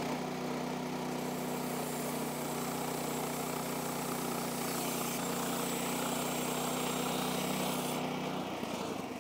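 Woodland Mills HM126 portable bandsaw mill running steadily, its band blade making a thin first cut along an ash log. About eight seconds in, the cutting hiss stops and the engine note drops as the blade leaves the log.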